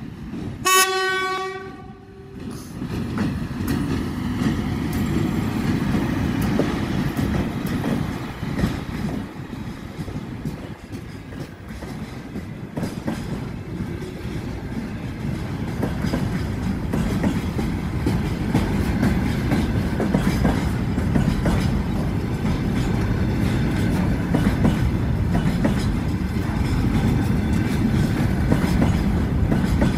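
A VL80 electric locomotive sounds one short horn blast about a second in. Then its container freight train rolls past close by, the wagon wheels clattering over the rail joints in a steady rumble.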